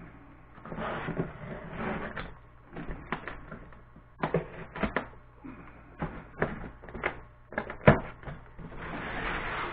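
Packing tape on a cardboard box being slit with a box cutter while the box is handled: scratchy rasps, then a string of sharp cardboard crackles and clicks, and a longer tearing rasp near the end.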